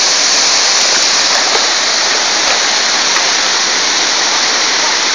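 Large waterfall crashing into its pool: a loud, steady rush of falling water, unbroken throughout.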